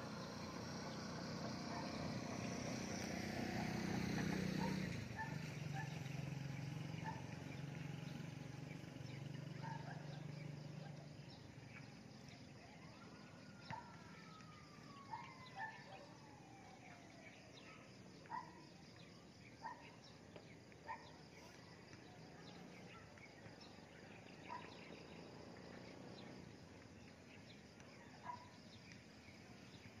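Birds calling with short, separate chirps every second or two over a faint steady hiss, and one long falling whistle about thirteen seconds in. During the first ten seconds a passing vehicle's low engine hum swells, drops in pitch and fades; it is the loudest sound.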